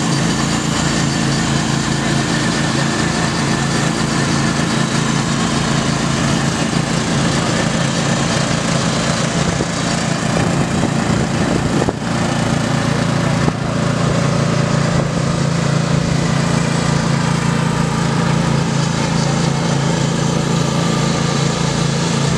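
Racing riding lawn mowers running flat out around a dirt track, their small engines making a loud, steady drone that shifts slightly in pitch about halfway through.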